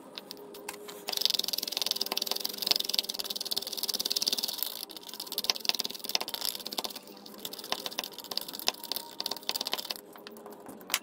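Epsom salt granules rattling down a plastic funnel into a motorcycle battery cell, with a small screwdriver tapping and poking to force the salt through. A steady hiss with many sharp taps starts about a second in and stops near the end.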